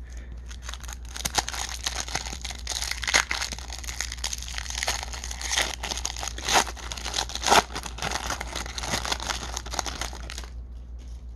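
Shiny foil wrapper of a baseball card pack being torn open and crinkled by hand: continuous crackling with a few louder snaps, stopping near the end.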